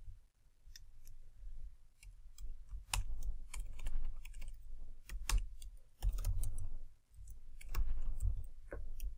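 Typing on a computer keyboard: irregular key clicks in short runs with brief pauses between them.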